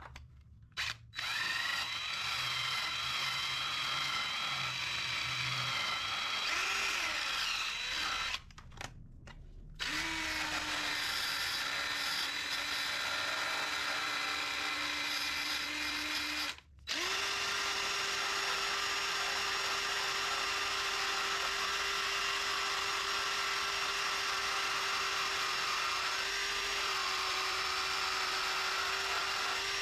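DeWalt 20V Max cordless drill spinning a small abrasive disc against sheet-metal firewall, grinding paint off to bare metal ready for welding. It runs in three long spells with brief stops about 8 and 16 seconds in, the last spell at a higher, steady pitch.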